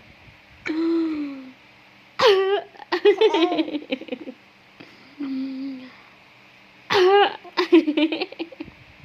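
A woman giving deliberate, playful coughs to amuse a baby, twice, each followed by the baby's high-pitched laughter in quick pulses; short hummed vocal sounds come in between.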